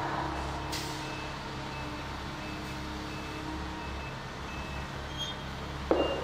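Lull with a steady low hum and faint high beeps repeating about twice a second, then a short sudden burst of sound near the end.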